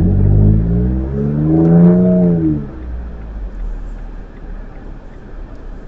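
Car engine revving up as the car pulls away from a near stop, rising in pitch for about two seconds and then falling away, followed by a steadier, quieter driving rumble.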